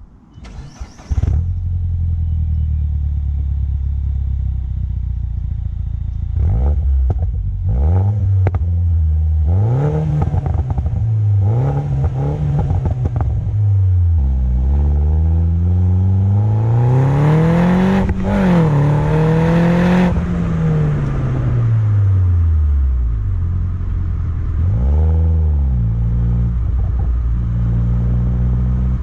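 2012 Mini Cooper S (R56) N18 turbocharged four-cylinder starting for the first time after a catless downpipe install: it cranks briefly and catches about a second in, then idles and is revved in several short blips and one longer rev, a few seconds long, that climbs and falls, with the exhaust running without a catalytic converter.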